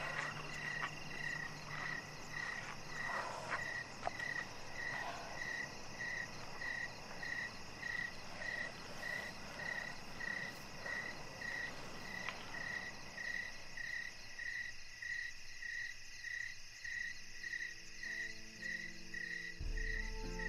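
Insects and frogs: a high chirp repeating about twice a second over a steady insect buzz, with a few frog croaks in the first seconds. Low sustained music tones come in near the end.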